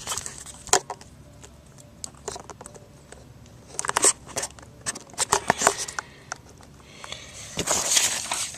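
Handling noise of paper and cardboard: short spells of rustling and clicking, about a second in, around four and five and a half seconds in, and again near the end.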